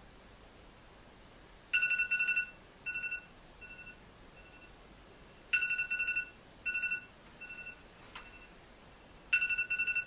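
Electronic alarm beeping. Three bursts of rapid high pulsing beeps come about every four seconds, and each burst is followed by two or three shorter, fainter beeps. There is a single sharp click about eight seconds in.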